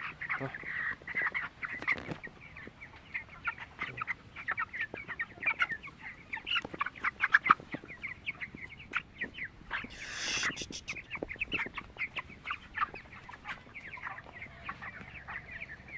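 A flock of 23-day-old broiler chickens peeping and cheeping, many short high calls overlapping, with a brief rustling burst about ten seconds in.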